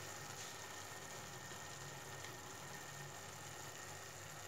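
Faint steady low hum with hiss, without any distinct knocks or stirring strokes.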